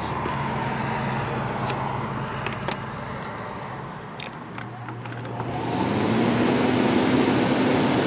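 General Electric rooftop RV air conditioner's fan motor starting up about two-thirds of the way in: a rush of moving air swells, and the motor's hum rises in pitch as it comes up to speed. The fan is running alone, with the compressor still off. Before it starts there is a steady low hum and a few light clicks.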